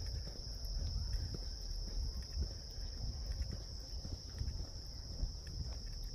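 Footsteps of a person walking, as irregular low thuds, under a steady high-pitched drone of insects.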